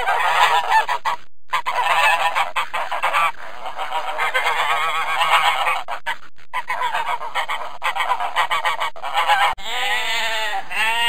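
Mallard ducks quacking in a dense, rapid chatter, in several runs with short breaks. About a second and a half before the end it switches to sheep bleating: two drawn-out bleats.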